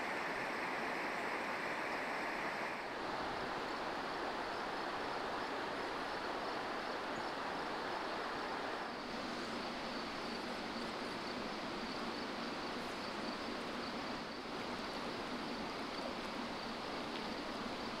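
River water rushing over shallow rapids: a steady hiss of flowing water, its tone shifting slightly about three seconds in and again about nine seconds in.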